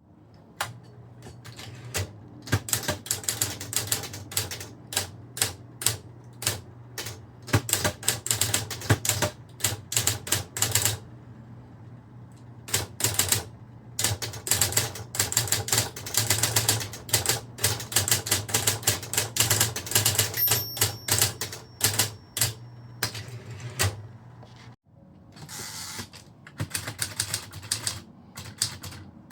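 Typewriter being typed on in quick runs of key strikes with short pauses between, over a steady low hum.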